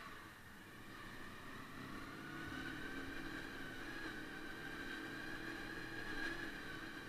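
Honda VFR400 NC30's V4 engine running at low revs as the bike rolls slowly, the engine note rising and falling gently, with a high whine over it.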